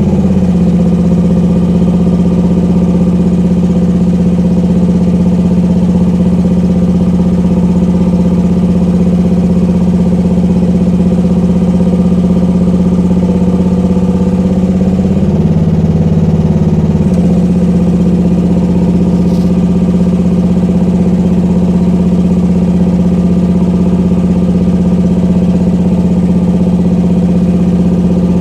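Small gasoline engine of a Rippa R10 mini excavator running steadily while the cab swing is worked. Its pitch dips slightly about half a second in and again for about two seconds just past the middle.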